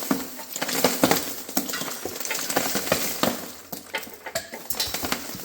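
Metal engine parts and hand tools clinking and knocking irregularly as an air-cooled Porsche flat-six is taken apart, with many small sharp clicks and a few louder knocks.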